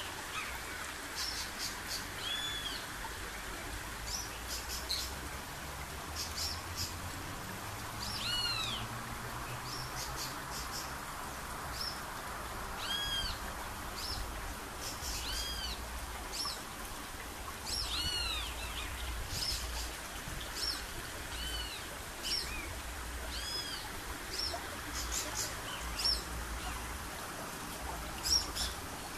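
Wild birds calling, with short arched whistled notes repeating every second or two and brief high chirps between them, over a steady background hiss.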